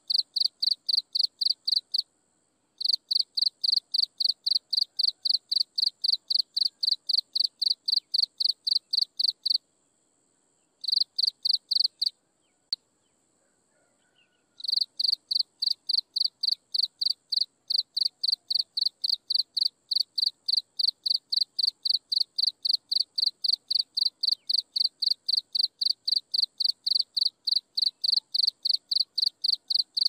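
An insect chirping in a fast, even pulse of high chirps, about four to five a second. It pauses briefly about two seconds in and again around ten seconds in, then stops for a couple of seconds with a single click before resuming.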